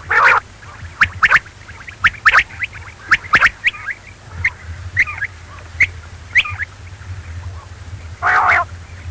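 Quail calling: a run of short, sharp chirping notes, often in quick pairs, with a louder, longer harsh call at the start and another near the end, over a steady low hum.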